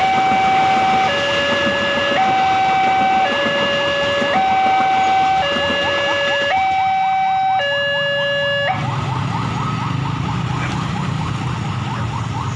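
Railway level-crossing electronic warning alarm alternating between two tones about once a second, over the noise of a passing train that fades out. The alarm stops about two-thirds of the way through, and motorcycle and car engines pull away across the tracks.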